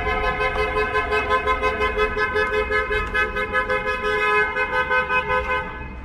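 Car horn honked over and over in rapid short pulses, its pitch unchanging, stopping shortly before the end, over low city traffic rumble.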